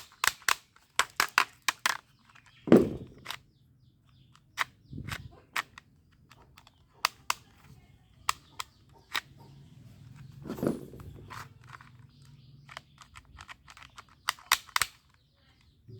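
Sharp clicks and taps in quick runs, with two heavier knocks about three and eleven seconds in: plastic toy guns being handled and worked.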